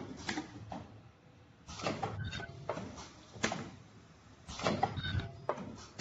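Automatic soft-tube filling and sealing machine running through its cycle: clusters of metallic clanks and clicks at the start, about two seconds in and about four and a half seconds in, with a sharp single click near three and a half seconds, repeating about every three seconds as the turntable indexes.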